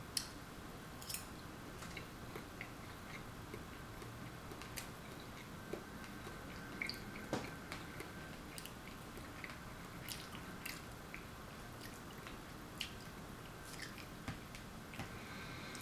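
Quiet chewing of soft food, with scattered small clicks and taps of a metal fork on a paper plate.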